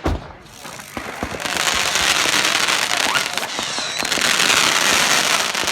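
Fireworks going off: a sharp thump right at the start, then dense continuous crackling with a couple of short rising whistles about three to four seconds in.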